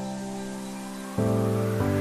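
Background music: held instrumental chords, with a new chord struck about a second in and another near the end, over a rising swish that builds in the background.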